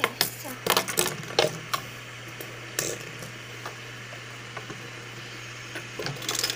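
Fidget spinners clicking and knocking against a wooden table as they are handled and set down, with a quick run of knocks in the first two seconds, one about three seconds in, and another cluster near the end.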